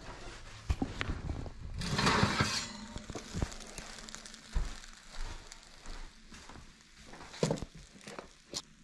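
Oven door opening and a metal baking sheet being pulled out of the oven and set down: a series of metal clanks and knocks, with a burst of scraping about two seconds in.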